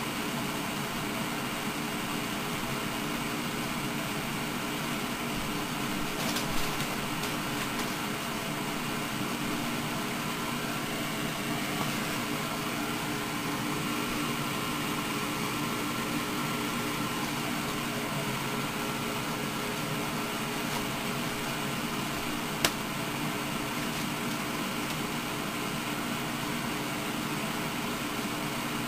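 Steady hiss with a faint hum from a cassette tape playing through a console stereo, with no recorded voices on this stretch of tape. A few small clicks come about six to seven seconds in, and one sharp click about 23 seconds in.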